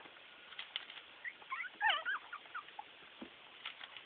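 Young Chiweenie and Miniature Pinscher puppies squeaking: a flurry of short, high-pitched squeaks that wobble up and down in pitch, bunched together from about one to two and a half seconds in.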